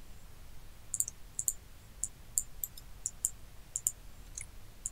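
Computer mouse clicking, a dozen or so short, sharp clicks at irregular intervals, some in quick pairs, over faint low hum.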